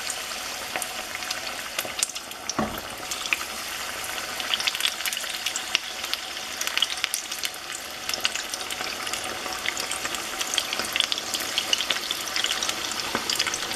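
Batter-coated basa fish pieces frying in hot oil in a pan: a steady crackling sizzle that grows denser as more pieces go into the oil. There is a single knock about two and a half seconds in.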